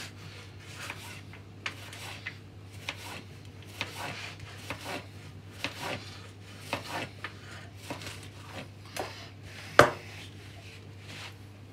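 Kitchen knife slicing raw beef steak into strips on a plastic chopping board: irregular short strokes and taps of the blade against the board, with one much louder knock near the end.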